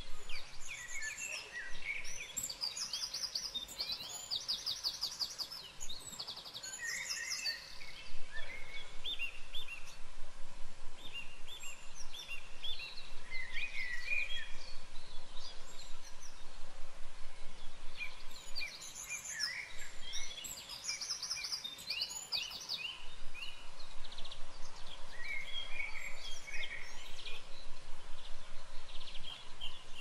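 Several wild birds singing at once, with overlapping songs of quick trills and repeated high chirps.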